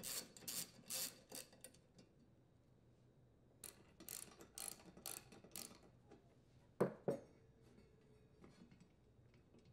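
Hand socket ratchet clicking in two short runs of quick clicks as it backs out the bolts holding a tiller's tine guard to the transmission housing. Two louder knocks about seven seconds in as the ratchet is set down on the bench.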